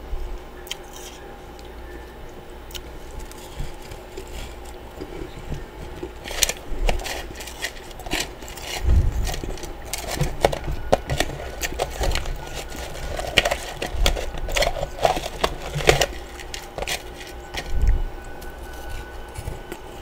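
Close-miked crunching of freezer frost and ice chunks being chewed: a run of irregular crisp crackles and crunches that starts about six seconds in and dies down near the end, with a few dull low thumps.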